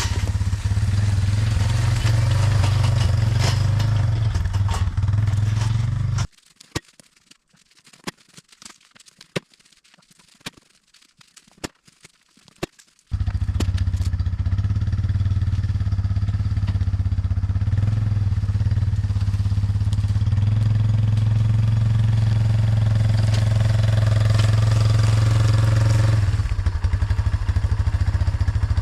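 Four-wheeler (ATV) engine running steadily. It cuts out for about seven seconds, leaving only a few faint clicks, then runs again.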